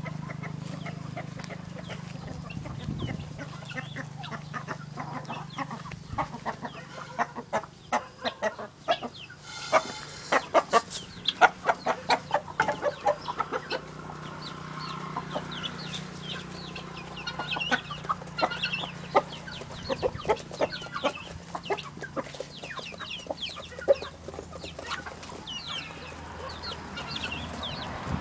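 Backyard chickens and guinea fowl calling, with a loud run of rapid repeated calls about ten to thirteen seconds in and many short high calls throughout.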